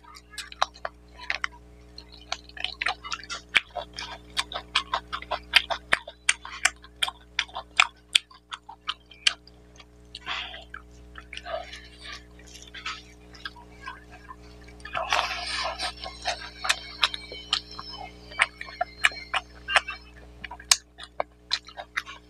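Close-up mouth sounds of eating mutton curry and rice by hand: irregular wet chewing and lip-smacking clicks, several a second, with a longer noisy stretch about fifteen seconds in. A steady low hum runs underneath.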